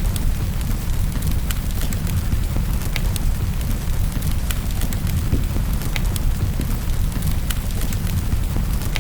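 Rain and a crackling wood fire: a steady low rumble with sharp crackles and pops scattered about once a second.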